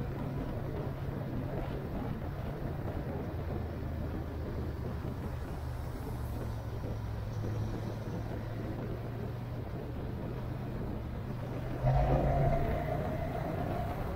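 Vehicle engine running under way, with road and wind noise; its low drone steps up and down in pitch a few times. About twelve seconds in it suddenly gets louder.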